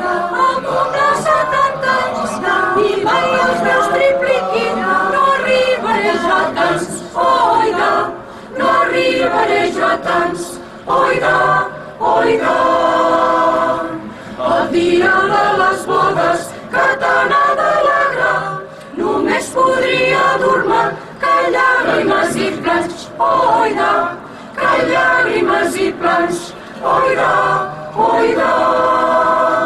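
Mixed choir of men and women singing a cappella in several voice parts, with short breaks between phrases.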